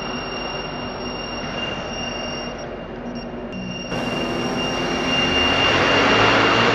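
Quadcopter's electric motors and propellers spinning, slowed to half speed so everything sounds lower: a steady whine over a rushing hum. It grows louder and fuller about four seconds in.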